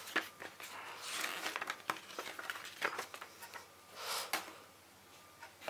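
Paper and plastic packaging being handled: irregular rustling with a few sharp clicks.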